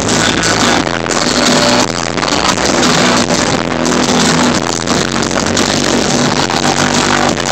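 Live electronic music played loud over a club sound system, dense and continuous with sustained low bass notes.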